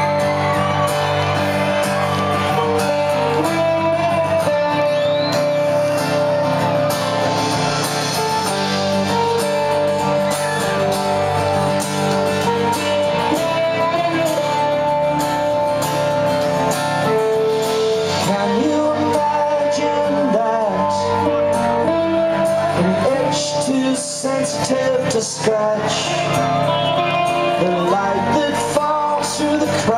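Live rock band playing: acoustic guitar strummed over a full band, with a voice singing. The sound is steady and loud, with a brief dip about three-quarters of the way through.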